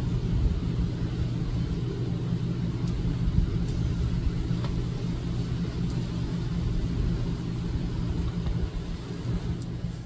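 Steady low rumble with a droning hum, like a motor running, with a few faint ticks over it.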